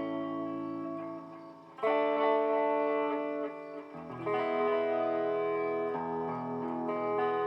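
Electric guitar played through a BOSS DD-8 digital delay pedal in Warp mode. Sustained chords blend into long echoing repeats. One chord fades away, a new one is struck about two seconds in, and another about four seconds in.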